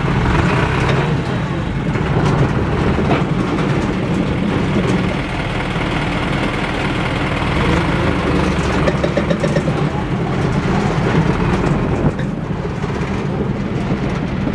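Heavy military off-road truck's engine running close by, a steady low rumble.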